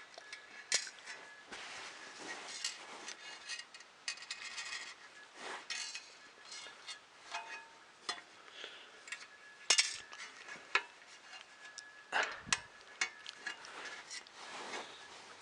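Small hard parts of a 3D printer's X-axis assembly being handled and fitted by hand: irregular clinks, clicks and light rattles, the sharpest about ten seconds in and again around twelve and a half seconds.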